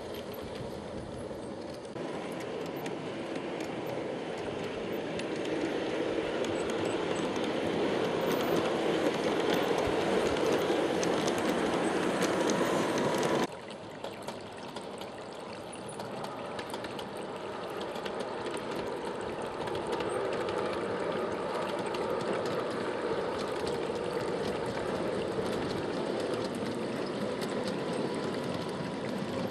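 LGB garden-scale model train running on its track: a steady rolling clatter and motor hum that grows louder as it comes near. About halfway through it cuts off sharply to quieter rolling, which then builds up again.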